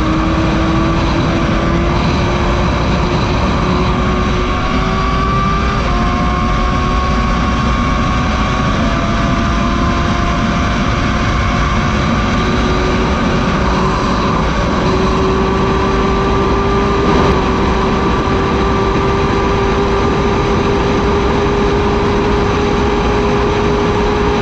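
Honda CBR1000RR SP1's inline-four engine pulling hard in the top gears, its pitch rising slowly as the bike gains speed, under heavy wind rush.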